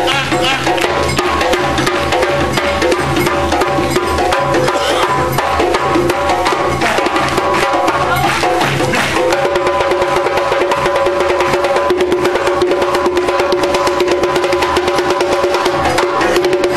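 Live percussion-driven music with a fast, dense drum rhythm. A deep drum pulse runs under the first half and fades out; about halfway through, two long held notes come in over the rhythm.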